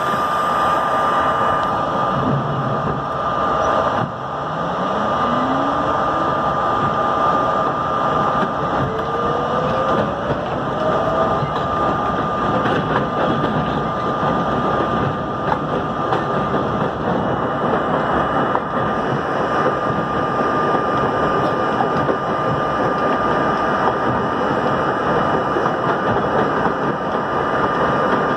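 R32 subway car pulling away from an elevated station and gathering speed, with steady wheel-on-rail rumble. About four seconds in, the traction motors' whine climbs in pitch, and it climbs again around nine seconds as the train accelerates. A steady high tone runs underneath throughout.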